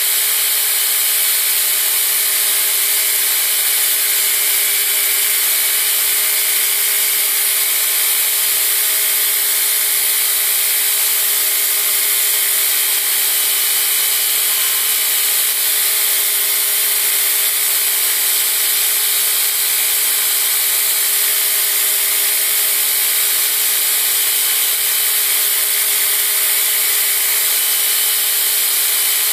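Belt grinder running with a steel push-dagger blade, cut from a planer blade, held against the abrasive belt to grind its bevels: a steady, even hiss over a few constant tones.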